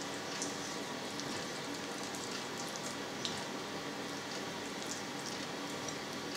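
Steady background hiss with a faint hum, and scattered soft clicks and scrapes from a kitchen knife trimming meat and sinew off a chicken thigh bone on a cutting board.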